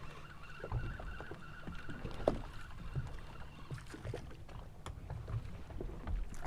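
A fishing boat's engine running steadily with a low hum, with a faint high whine for the first few seconds and scattered light knocks and clicks on the boat.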